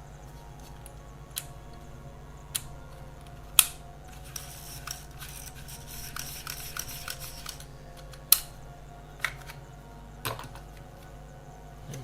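Plastic half-frame film camera being handled and fitted together: scattered sharp clicks and snaps, the two loudest about three and a half and eight seconds in, with a few seconds of light rapid ticking in the middle, over a steady low hum.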